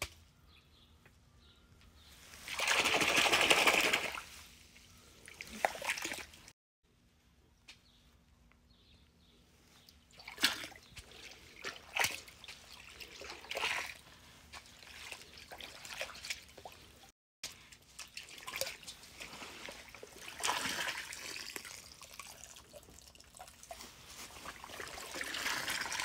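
Water pouring and trickling back into a pond as a perforated metal colander of floating azolla is drained, in several short bouts; the loudest pour comes about three seconds in.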